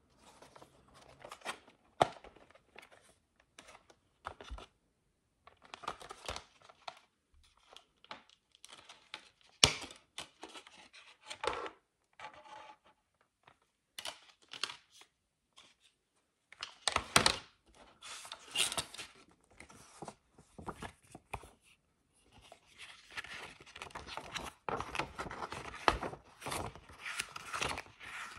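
Cellophane shrink wrap being torn off a plastic CD jewel case: irregular crackling and crinkling bursts with sharp clicks of the hard plastic case. It turns into a denser run of crinkling in the last few seconds.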